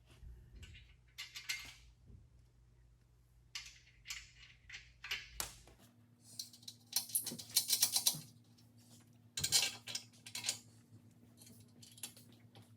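Small metal parts clinking and rattling in bursts as they are handled, with a faint steady hum coming in about six seconds in.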